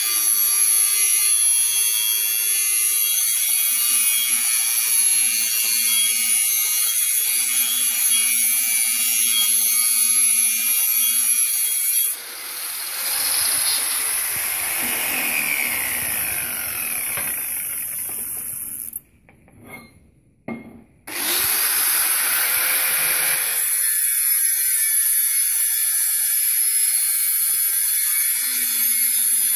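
Angle grinder grinding the end of a metal pipe for weld preparation, a steady high-pitched whine. About twelve seconds in it is lifted off and winds down with falling pitch, falls quiet for about two seconds, then starts up with a rising whine and goes back to grinding.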